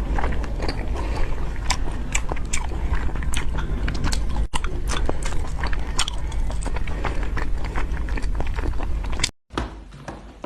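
Close-miked chewing and biting: a dense run of irregular wet clicks and crunches from a mouth eating. The sound cuts out abruptly near the end, then resumes much quieter.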